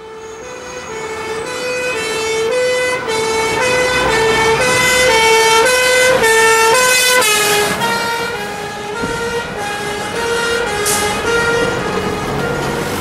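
Two-tone emergency-vehicle siren alternating between two notes about twice a second. It grows louder as the vehicle approaches, then drops slightly in pitch as it passes and draws away, with its engine running underneath.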